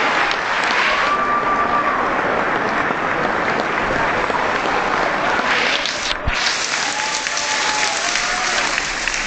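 Audience clapping steadily in a hall, with a few brief calls over it and a single thump about six seconds in.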